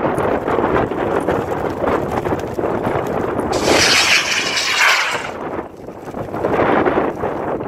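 Wind buffeting the microphone, then about three and a half seconds in a model rocket motor fires with a sudden loud rushing noise that lasts about a second and a half and fades as the rocket climbs away.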